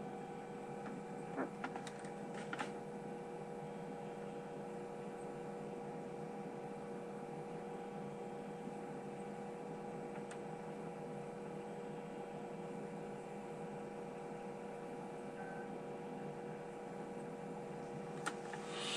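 Steady electrical hum made of several fixed tones, with a few faint clicks in the first few seconds and again near the end.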